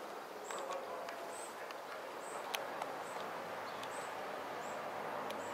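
Paper wasp scraping fibre from a weathered wooden post with its mandibles, heard as faint, irregular crackling clicks: the wasp gathering wood pulp for its nest. A short high chirp repeats about once a second behind it over a steady outdoor hiss.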